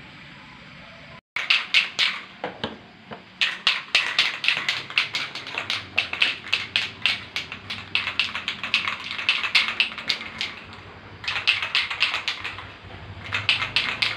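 Aerosol spray-paint can being shaken, its mixing ball rattling in fast runs of sharp clicks with a couple of short pauses.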